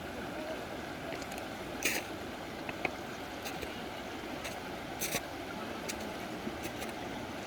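Steady rush of flowing water from a valley stream, with a few sharp clicks or taps about two and five seconds in.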